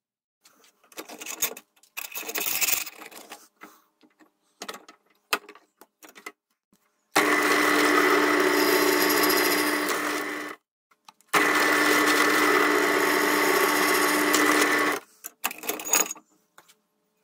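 Bench drill press motor running and drilling through a thin stainless steel plate, in two steady runs of about three and a half seconds each with a short break between. Before them, a few seconds of light knocks and clatter as the plate and clamp are handled.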